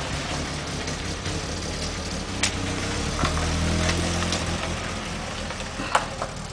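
Street traffic: a motor vehicle's engine running and passing, louder about three to four seconds in, with a few sharp clicks.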